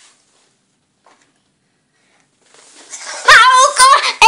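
Near silence for over two seconds, then a child's high voice starts singing about three seconds in, loud, with a wobbling pitch.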